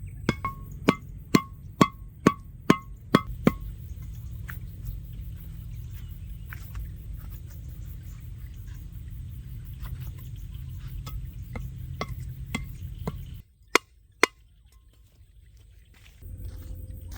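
Knife chopping on a wooden board, regular strokes about two a second that stop after about three and a half seconds. A steady low rumble follows, broken by two single knocks about two-thirds of the way through.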